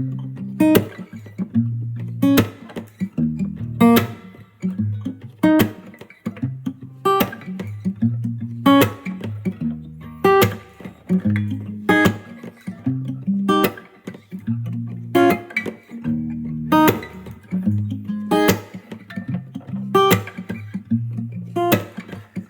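Background music: plucked guitar notes at a steady, even pace over a low bass line.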